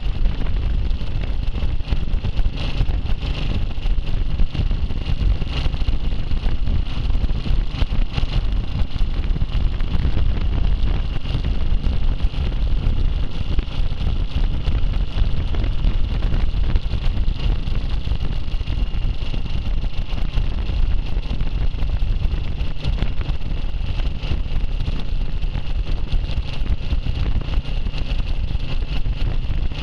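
Classic motorcycle riding along at steady road speed: the engine running under a constant rumble of wind on the microphone.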